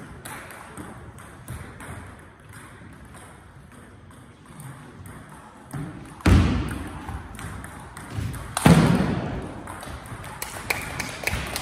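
Table tennis rally: the celluloid-type ball clicking off bats and the table in quick succession. Two loud sudden sounds come about six and nine seconds in, each fading over about a second.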